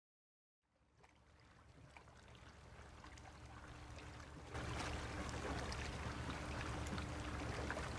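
Seashore ambience: small waves lapping and trickling on a pebbly shore, over a low rumble and a faint steady hum. It fades in after a moment of silence and gets louder about halfway.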